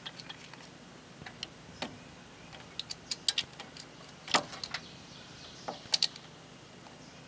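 Scattered light metallic clicks and taps as a starter motor and its mounting bolt are handled against a Briggs & Stratton single-cylinder engine block. The sharpest clink comes about four seconds in, another about six seconds in.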